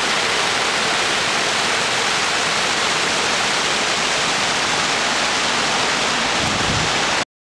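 Stormwater pumping station discharge: pumped rainwater gushing from an outfall and churning down a drainage channel, a steady loud rush that cuts off suddenly near the end.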